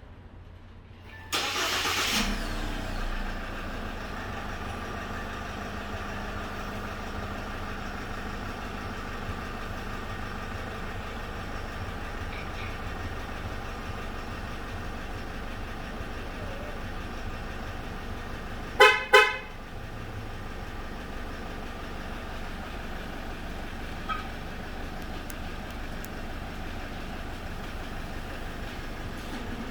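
SsangYong G4 Rexton engine started by remote start: it cranks and catches about a second in, then idles steadily. About two-thirds of the way through, the horn gives two short toots.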